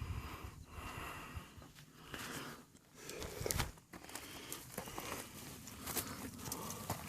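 A hiker's heavy breathing close to the microphone, rising and falling about once a second, with rustling and scattered footstep ticks.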